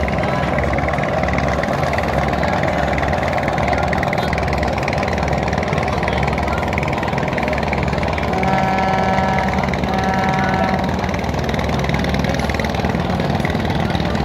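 Steady drone of a river vessel's diesel engine running. A little past the middle a horn sounds two blasts, the first longer than the second.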